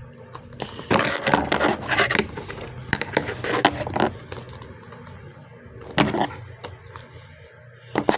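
Hands working at a tight puzzle box's packaging: irregular crackling, scraping and clicking, busiest from about one to four seconds in, with another sharp burst about six seconds in.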